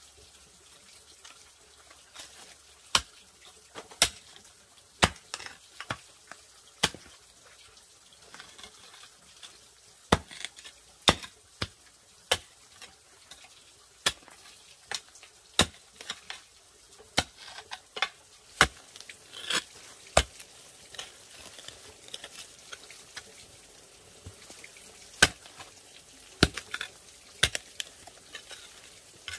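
A string of sharp knocks or taps at uneven intervals, roughly one a second and sometimes in quick pairs, with a faint steady hiss between them.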